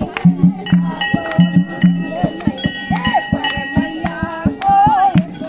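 Women singing a Hindu devotional bhajan over a fast, steady percussion beat.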